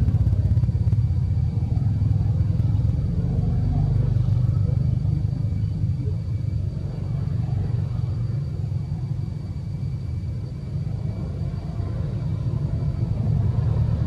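A loud, steady low rumble with a faint, thin, high steady tone above it.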